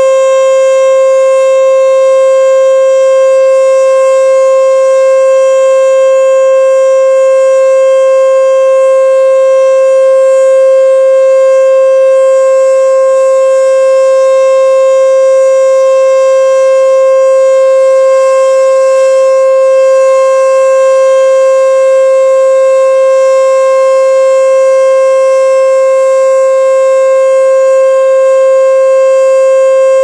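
E.D. Bullard 'Weltex' outdoor warning siren, taken for a Model 3H27, sounding its full-alert signal: one loud, steady tone held at a constant pitch, with strong overtones.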